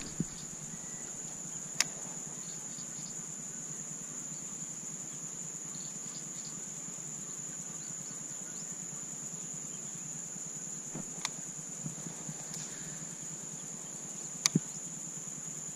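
A steady, high-pitched insect chorus of crickets or cicadas drones throughout. A few sharp clicks break in, one about two seconds in, one about eleven seconds in, and two in quick succession near the end.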